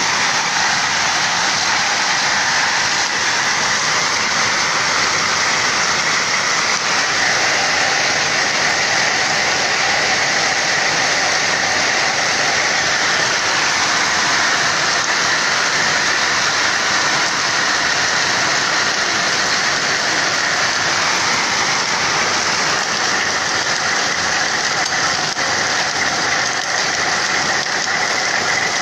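Hailstones and rain pelting grassy ground during a hailstorm: a dense, steady patter that keeps up without let-up.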